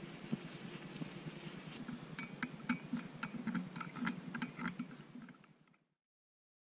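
Metal teaspoon stirring coffee in a ceramic cup, clinking against the rim and sides about four times a second for around three seconds, after a low steady hiss. The sound cuts off abruptly near the end.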